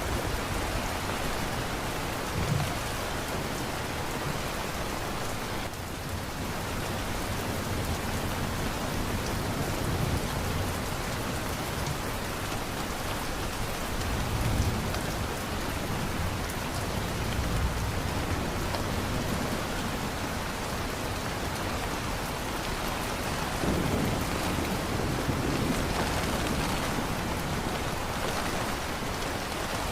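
Heavy rain falling steadily, with low rumbles of thunder swelling about halfway through and again near the end.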